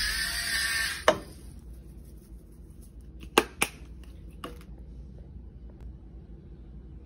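Kitchen handling sounds while cooking pasta. A steady hiss stops with a sharp knock about a second in, then pots or utensils clink sharply three times, two of the clinks close together.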